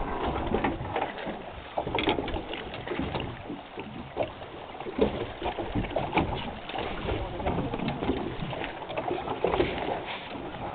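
Small boat on the water: irregular knocks and splashy clatter over a steady low rumble.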